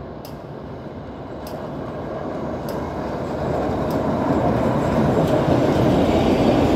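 A rail track-tamping maintenance train runs along metro tracks, coming closer and passing by, its rumble growing steadily louder. Faint clicks come about once a second.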